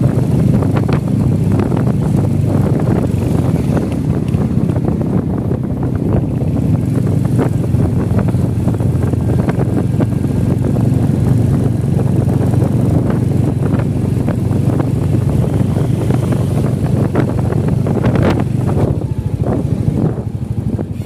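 Royal Enfield Hunter 350's single-cylinder engine running steadily under way, with wind buffeting the microphone. The sound eases slightly near the end.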